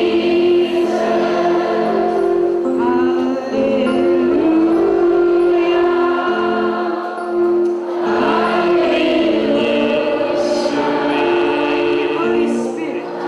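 A choir singing a slow Christian song in long held notes.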